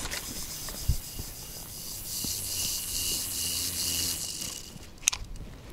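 A spinning reel being cranked, winding line onto the spool: a steady whirr with a faint high whine that stops a little before the end, followed by a couple of sharp clicks.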